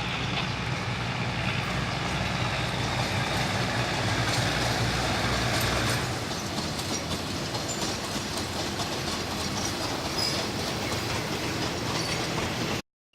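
Diesel train moving along the track, its engine running steadily for about the first six seconds, with the wheels clacking and squealing over the rails. The sound cuts off suddenly near the end.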